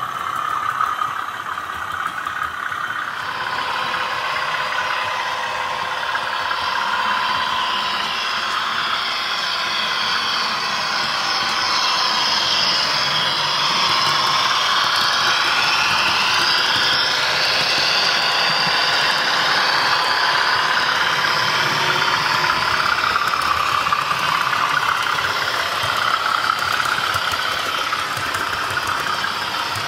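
Model trains running on a model railway layout, with a steady whir of small electric motors and wheels rolling on the rails. It gets louder through the middle as a train runs close by.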